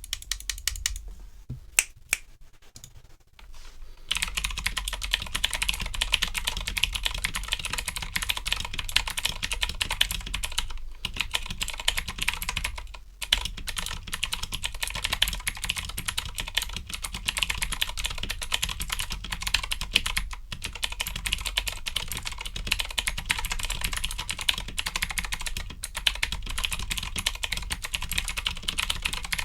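Redragon K552 mechanical keyboard with clicky Outemu Blue switches, its springs lubed and its plate and case dampened with rubber, foam and coins, being typed on. A few separate keystrokes come first, then from about four seconds in it settles into fast continuous typing with a few brief pauses.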